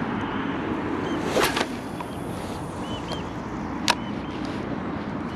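A lure rod swishing through a cast about a second and a half in, then a sharp click near four seconds in, over a steady outdoor background hiss.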